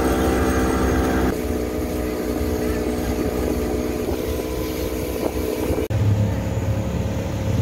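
Outboard motor on a small motorboat running under way, a steady engine note over rushing wind and water noise. The engine note changes abruptly about a second in, and a deeper hum takes over near the end.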